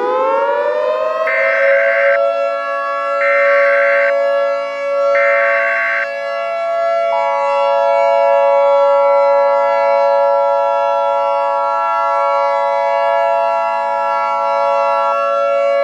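Civil defense siren winding up to a steady wail, layered with an Emergency Alert System header: three short bursts of screeching data tones within the first six seconds, then the two-tone EAS attention signal held for about eight seconds, marking the start of a new alert.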